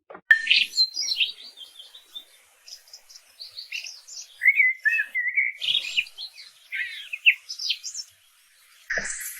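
A bird chirping and twittering in a quick run of short, varied whistled notes, which stops about eight seconds in.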